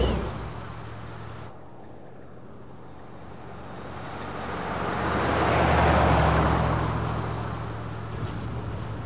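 A car drives past on an open road. Its engine hum and tyre noise swell to a peak about six seconds in, then fade away.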